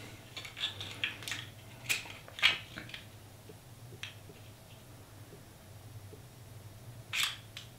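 Metal calipers slid and closed against the thin wall of a small 3D-printed test cube: a run of short clicks and scrapes in the first three seconds, another click near the end, over a low steady hum.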